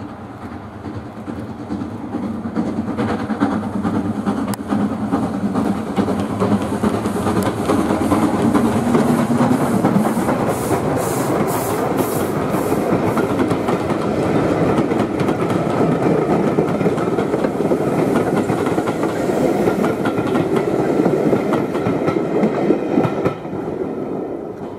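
Steam locomotive hauling a passenger train approaching and passing close by. The sound builds over the first several seconds, then the coaches rattle and click over the rail joints as they go by. It drops away sharply near the end.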